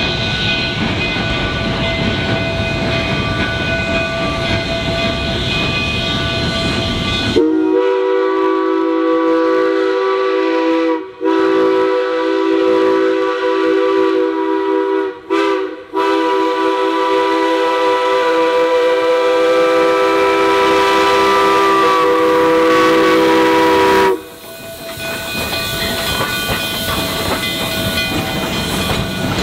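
Narrow-gauge steam locomotive 473, a K-28 2-8-2, blowing its chime steam whistle several seconds in: a loud chord of several steady tones sounded as two long blasts, a short one and a final long one, the grade-crossing signal. Before and after the whistle the train's running noise fills the sound.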